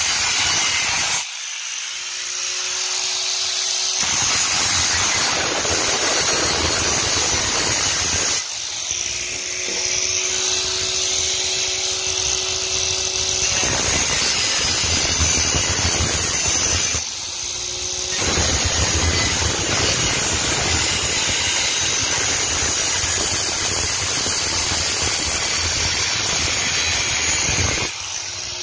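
Angle grinder with a cutoff wheel cutting through the thin steel wall of an empty refrigerant cylinder: a loud, steady grinding. Four times the wheel is eased off the metal, once for several seconds, and the grinding drops back to the motor's whine before it bites in again.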